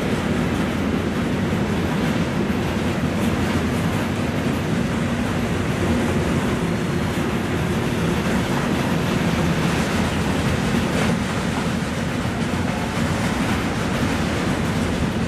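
Intermodal freight train, its wagons loaded with road trailers, rolling steadily past: an even rumble of wheels on rails.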